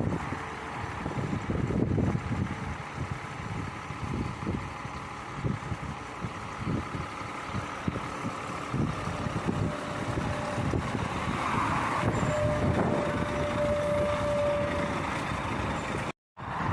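Motorway traffic with trucks passing, an irregular low rumble rising and falling. A steady tone sounds for about three seconds past the middle, and the sound cuts out for a moment just before the end.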